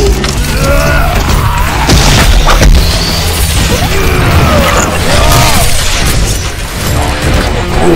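Action-film soundtrack: dramatic music with heavy bass under fight sound effects of giant robots clashing, with booms and metal crashes. There are a couple of sharp impacts about two seconds in, and short gliding tones in the mix.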